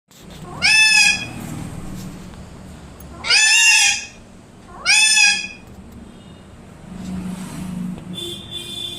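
Pet parrot calling loudly three times, each call about half a second long, rising then falling in pitch, with quieter low background sounds between the calls.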